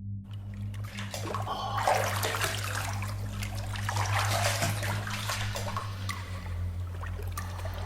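Water splashing and dripping sound effects, layered with reverb over a steady low room-tone hum, starting abruptly out of silence.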